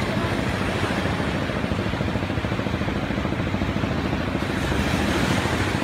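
An engine running steadily with an even low chugging.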